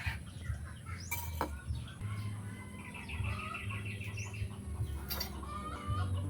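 Chickens clucking, with a quick run of calls a few seconds in, over a low steady rumble.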